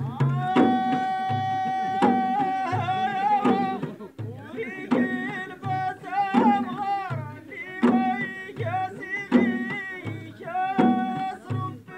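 Moroccan folk troupe music: a single voice sings long, wavering held notes over steady low hand-drum beats.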